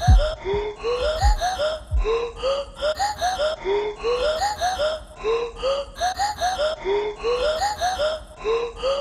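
Background music: a looped phrase of short, vocal-like notes that rise in pitch, several a second, repeating over and over.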